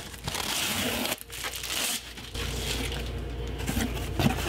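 Packing tape being peeled off a cardboard box in a few long rasping pulls, then cardboard rustling and scraping as the flaps are opened and a cardboard insert is lifted out.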